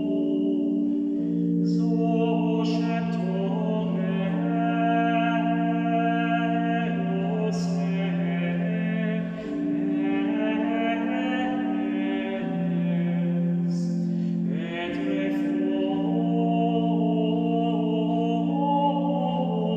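Male voices singing a Gregorian chant tract in Latin, unaccompanied: long, slow melismatic lines on held notes, with a few sibilant consonants.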